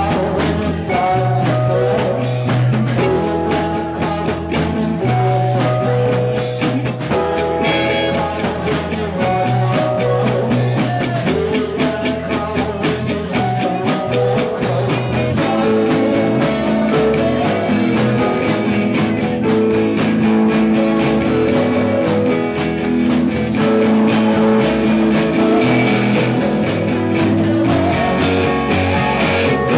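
Rock band playing live, with electric guitar, bass and drums, loud and steady throughout.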